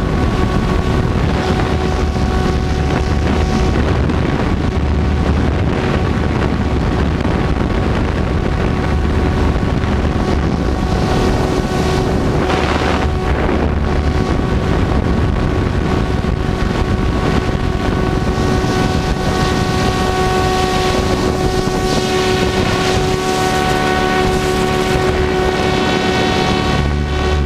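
Goblin 700 radio-controlled helicopter in flight, heard from a camera on its tail boom: a steady mechanical whine of several held tones from the rotor drive, with wind rushing over the microphone.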